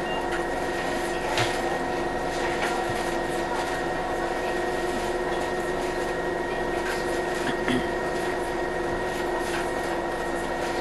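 Interior hum of a Scania Citywide CNG city bus standing nearly still, its natural-gas engine idling under a steady drone made of several fixed tones. A few faint knocks come through, about a second and a half in and again near eight seconds.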